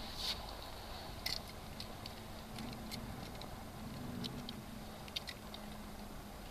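Scattered light clicks of metal hooks and a hand tool as a lure is worked out of a pike's mouth, about one click a second, over a steady outdoor hiss.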